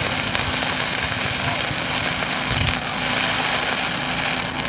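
Fireworks barrage: a steady, dense crackling hiss of many bursting and sparking shells at once, with a dull boom a little past halfway through.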